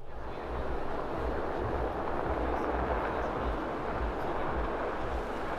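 A large coach bus's engine running, a steady rumbling noise with an uneven low rumble underneath.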